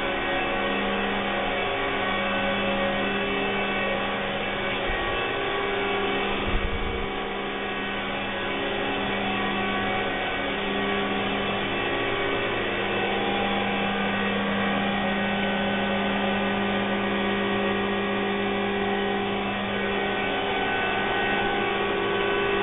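Steady mechanical drone of running machinery: a hum carrying several steady tones. A brief low thump about six and a half seconds in.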